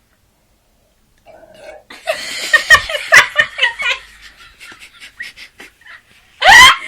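A person burping: a rattling, pulsing stretch about two seconds in, then a short, very loud burst rising in pitch near the end.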